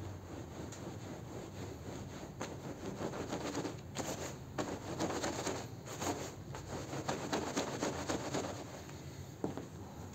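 Stiff push-broom bristles scrubbing a wet, soapy rug on a tile floor: irregular scrubbing strokes, loudest through the middle.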